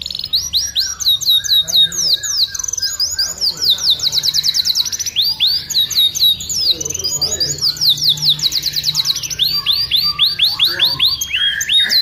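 Domestic canary singing a long, continuous song of fast trills: rapid runs of repeated high notes sweeping downward, the rhythm and note shape changing every second or two.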